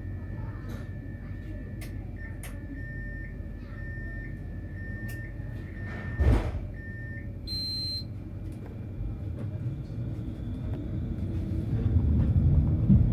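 Tram with a steady low rumble and a thin steady high tone, a single knock about six seconds in and a short high beep a second or so later. The rumble then grows louder toward the end as the tram gathers speed.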